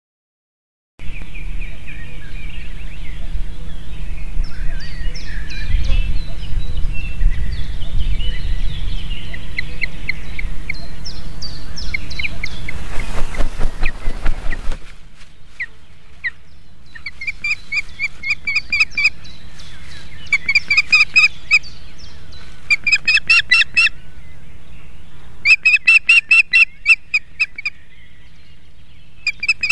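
Ospreys calling at the nest: from about halfway, bouts of fast, high, whistled chirps, each lasting a second or two with short gaps between. Before that, a low wind rumble on the microphone under thinner bird calls, ending in a burst of flapping and rustling as a second osprey lands with a bundle of dry grass.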